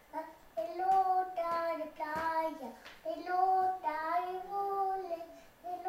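A young boy singing unaccompanied, in two long phrases of held, wavering notes with a short break about halfway.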